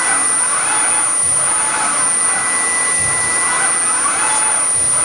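CNC carving machine's high-speed spindle running with a steady high whine over a loud rushing noise, with a faint low pulse about every second and a half.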